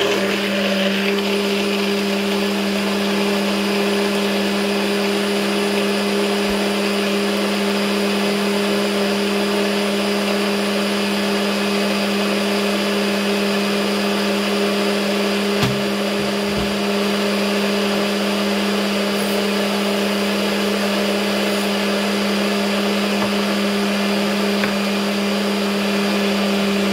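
NutriBullet personal blender's motor running steadily at one pitch, blending a smoothie of milk and ice.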